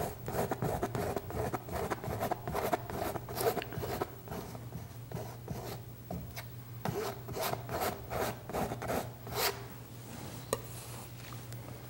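Palette knife scraping paint onto a stretched canvas in short, irregular strokes.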